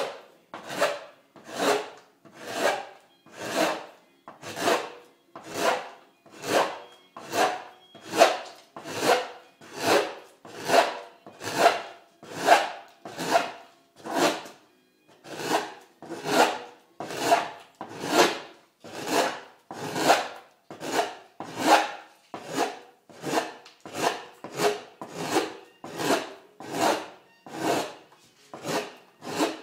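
A hand gouge cutting shavings from a cello's spruce top plate in evenly paced strokes, a little more than one a second, each a short scraping rasp of the blade through the wood. This is the top being graduated: carved down to its final thickness.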